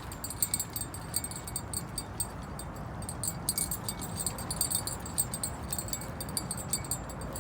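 Wind rushing over the microphone, with light metallic clicking and tinkling all through.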